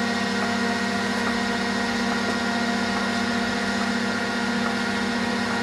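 Orbital TIG welding system running mid-weld on a pipe collar, with cold wire feed: a steady hum with several fixed tones and a hiss, unchanging throughout.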